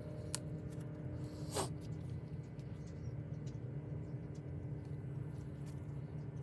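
Light clicks and a brief scrape from handling small craft pieces, over a steady low hum.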